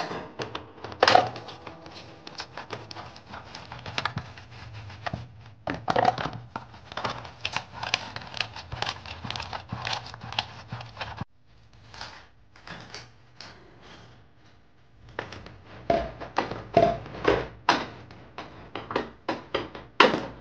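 Dishes being washed by hand in a stainless steel sink: plates, bowls and plastic containers knocking and clattering irregularly as they are handled and scrubbed.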